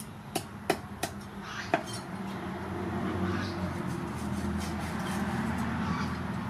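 A meat cleaver chopping fish on a wooden chopping board, four sharp knocks in the first two seconds. A low steady rumble builds from about three seconds in.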